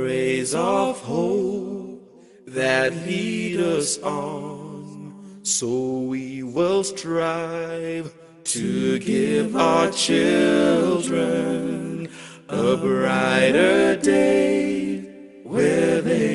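A male a cappella group sings in harmony, a lead voice over sustained low backing voices, in phrases with brief breaks between them.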